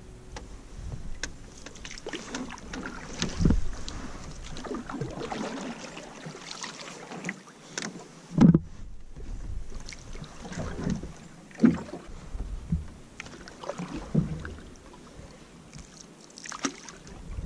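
Canoe paddle strokes in calm water: irregular splashing and dripping from the blade, with a few louder strokes every few seconds.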